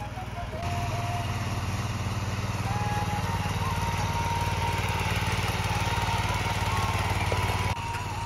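Small single-cylinder petrol engine of a walk-behind rotary tiller running steadily under load as its tines churn soil. The engine gets louder about a second in, and the sound drops suddenly near the end.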